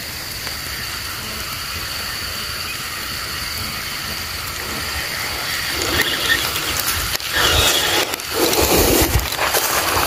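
Ryobi Zeus 2000 spinning reel being cranked, a steady whir of its gears as line is wound in. From about six seconds in come louder, rougher rustling noises.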